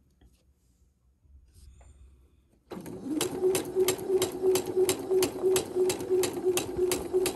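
Sewing machine starting up a little under three seconds in and running at a steady pace, its motor hum overlaid by an even needle clack about three to four times a second, as it stitches a quarter-inch seam through two small fabric squares.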